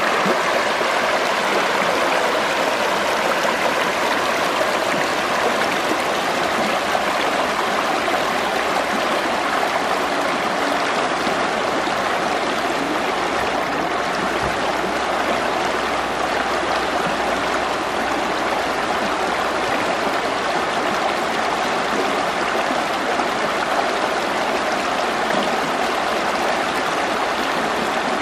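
Schwechat river water flowing steadily over its bed, a continuous stream sound with no breaks.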